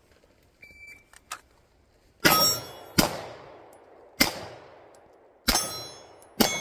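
A shot timer beeps once, then a pistol fires five shots at steel plates over about four seconds, each shot followed by the ring of the hit steel.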